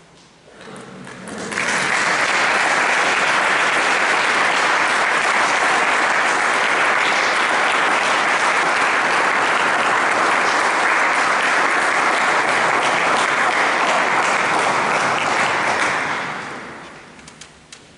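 Audience applauding, building up about a second in, holding steady, then dying away near the end.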